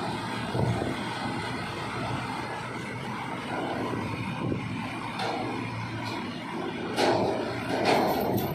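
Diesel engines of several ACE mobile cranes running hard under load as their booms lift an overturned tanker truck upright. The noise is steady and gets louder near the end, with a couple of sharper sounds.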